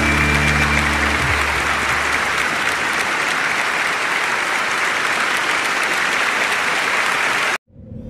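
Audience applauding, while the song's last held notes fade out in the first couple of seconds. The applause cuts off abruptly near the end.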